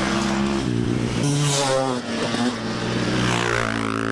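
Motorcycle engine revving, its pitch stepping up and down several times.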